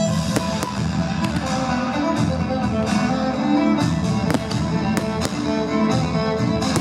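Show music with strings playing at a fireworks display, with firework bangs cracking over it every second or so.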